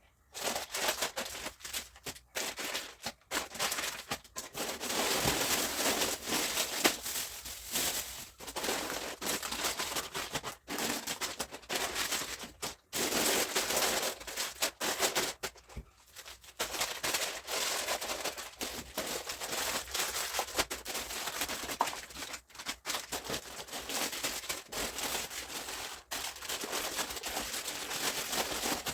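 Plastic shopping bags and grocery packages rustling and crinkling in irregular handfuls as items are taken out and handled.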